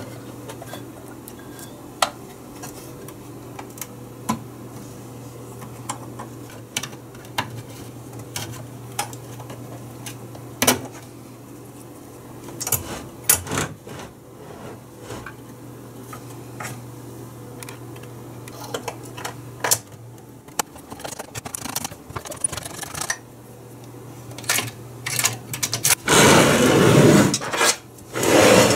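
Small metallic clicks and clinks of hand tools and parts being handled inside a stainless steel payphone housing, over a steady low hum that stops about two-thirds of the way through. Near the end comes a louder rough scraping handling noise.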